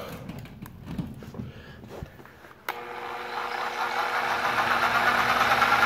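Bauer 1641E-B SDS rotary hammer, plugged back in and switched on with its speed dial on one, the lowest setting: it starts about two and a half seconds in and builds up over a couple of seconds to a steady run. Before it starts there are a few handling knocks and clicks.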